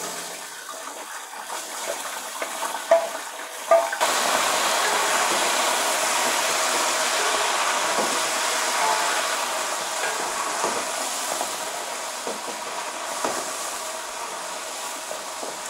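Chicken pieces frying in hot oil with browned onions in a large metal pot: a loud, steady sizzle that jumps up sharply about four seconds in as the meat goes into the oil, then slowly eases. A wooden spoon knocks and scrapes against the pot, with two sharp knocks just before the sizzle jumps.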